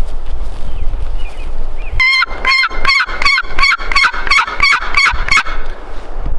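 A series of about ten turkey yelps, evenly spaced at about three a second, starting about two seconds in. Low wind rumble on the microphone before and after; it drops out while the yelps sound.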